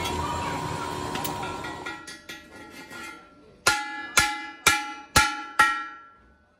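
Electric arc welding on a steel truck rim dies away over the first two seconds. After a few light knocks, a hammer strikes the welded rim five times about half a second apart, and the steel rim rings after each blow.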